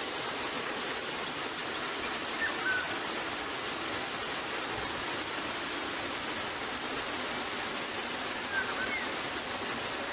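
Steady rushing noise like running water. Two brief faint chirps sound over it, one a couple of seconds in and one near the end.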